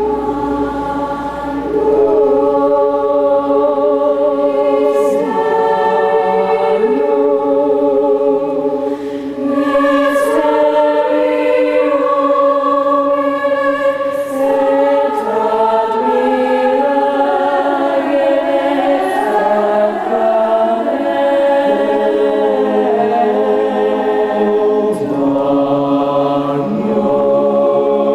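Choir singing in several parts, the voices holding long notes with vibrato and moving together from chord to chord.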